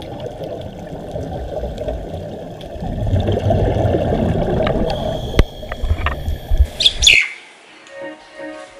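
Muffled underwater rumble on a scuba dive, water noise heard through the camera's housing. It grows louder about three seconds in and has a few sharp clicks later on. About seven seconds in it cuts off to soft music with a bird chirping.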